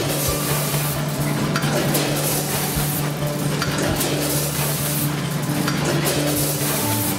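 Automatic snack bagging machine with a multihead weigher running: a steady rattling hiss of snack product pouring through the weigher and filling tube, with mechanical noise from the bag-forming and sealing section.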